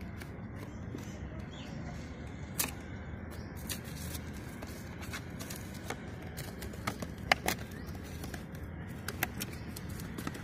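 A small cardboard box being opened by hand: scattered crackles, scrapes and sharp taps of cardboard flaps and tape being pulled apart, over a steady low background noise.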